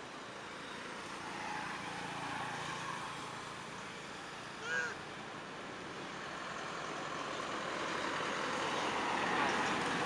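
Steady outdoor background noise that slowly swells louder toward the end, with one brief call about halfway through, rising then falling in pitch.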